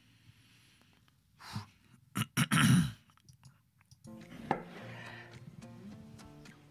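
A few short loud noises around two to three seconds in, then background music starts about four seconds in, with a knife chopping on a cutting board over it.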